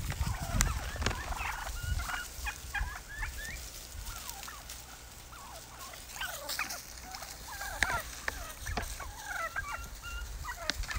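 A flock of wild turkeys calling as they feed: many short chirping calls and clucks, in two busy spells with a quieter lull midway, over a few light clicks from the birds in the dry leaves.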